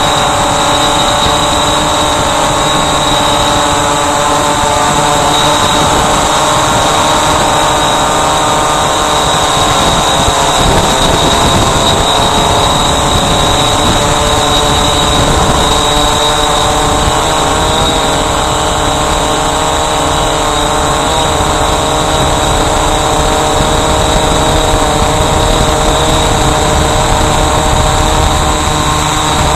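Walkera Voyager 3 quadcopter's electric motors and propellers running in flight, picked up close by its onboard camera: a loud, steady whine of several tones whose pitch drifts slightly as the craft manoeuvres.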